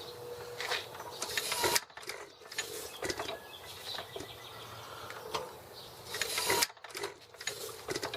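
Hands-on mechanical work on an antique hit-and-miss farm engine that is not running: irregular metal clicks, scrapes and creaks. Twice, about two and about seven seconds in, a louder rushing sound builds up and then stops abruptly.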